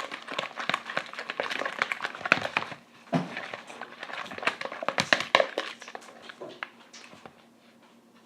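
Glue-and-starch slime being stirred in a bowl: a quick, irregular run of clicks, scrapes and sticky squelches that thins out and stops about seven seconds in.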